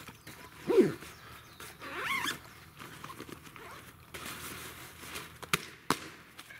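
Green nylon duffel bag being packed and closed by hand, with rustling, zipping and two sharp clicks near the end. About a second in, a short loud animal call falls in pitch, and a higher wavering call follows about two seconds in.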